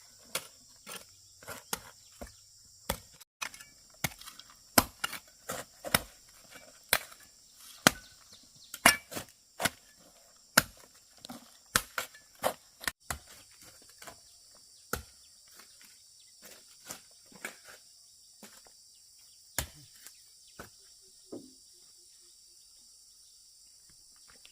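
Hand tool blows on wood, sharp irregular strikes about two a second, thinning out about halfway and stopping a few seconds before the end. Insects drone steadily and high-pitched throughout.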